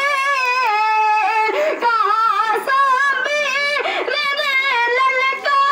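A single high voice sings a couplet in a long, wavering melody with many trills and slides, pausing only briefly between phrases.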